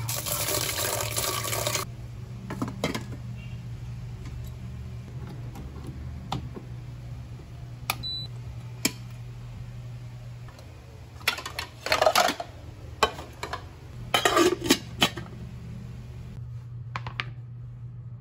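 Tap water runs into a pot of rice in a stainless steel sink for about two seconds. Scattered clinks and clatters of kitchenware being handled follow in two bunches, about twelve and fourteen seconds in, over a low steady hum, with a short high beep about eight seconds in.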